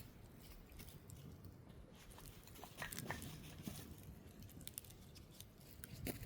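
Wood campfire crackling faintly, with scattered sharp snaps and pops.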